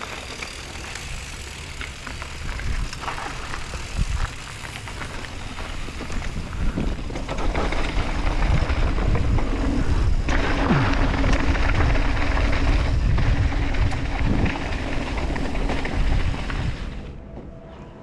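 Wind buffeting an action camera's microphone as a mountain bike descends, with tyres rumbling over dirt, a few knocks from the bike and a rise in loudness about halfway through as speed builds. The noise falls away near the end.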